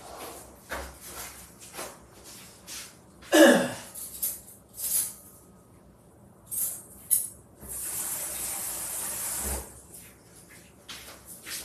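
Kitchen handling sounds: scattered small clinks and knocks of dishes and utensils, with one loud scrape about three seconds in that falls in pitch, and a steady hiss for a couple of seconds near the end.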